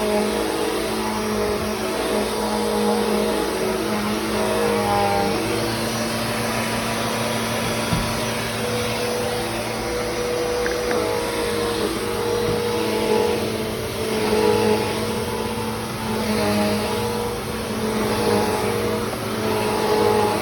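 Bissell CleanView 3536 vacuum cleaner running steadily, its motor whine shifting slightly in pitch now and then as it is worked over the floor.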